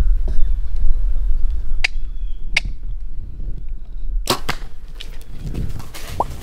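Compound bow shot at close range: a sharp snap of the string and an arrow hitting a whitetail doe a split second later, about four seconds in. Two sharp clicks come a couple of seconds earlier.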